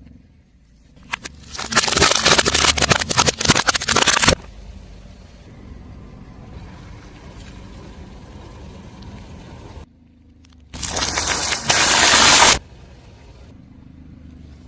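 Car tyre rolling over and crushing crunchy objects: two loud stretches of dense crackling and crunching, the first starting a second or two in and lasting about three seconds, the second near the end lasting about two seconds. A quieter low steady rumble of the car lies between them.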